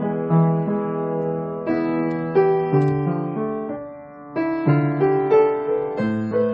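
Background piano music: a gentle melody over held chords, thinning out briefly about two-thirds of the way in before the notes pick up again.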